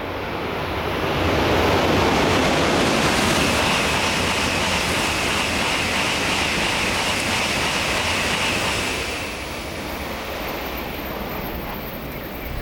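N700-series Shinkansen train passing through a station at high speed: a rush of air and rolling noise that swells over the first couple of seconds. It holds loud for several seconds with a steady high tone over it, then eases off near the end.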